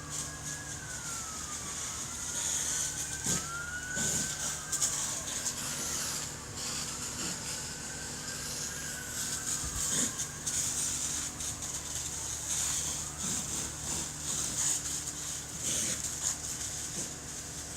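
Emergency vehicle siren wailing, rising and falling in pitch, dying away about ten seconds in, over a steady low hum and hiss with scattered sharp pops.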